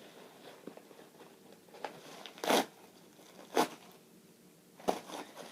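Packaging being torn open and handled, with four or five short sharp rips, the loudest about two and a half seconds in.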